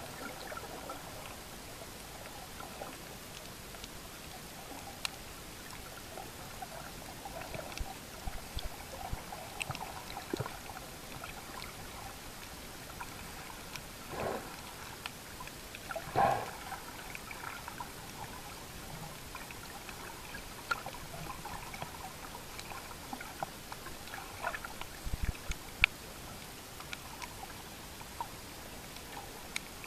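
Underwater sound picked up by a submerged camera over a coral reef: a steady hiss scattered with small clicks and crackles, with louder whooshes of moving water about 14 and 16 seconds in and a sharp click near the end.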